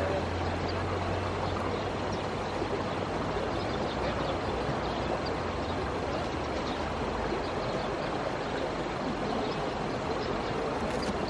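Steady rushing of a fast-flowing river, an even wash of water noise with no break.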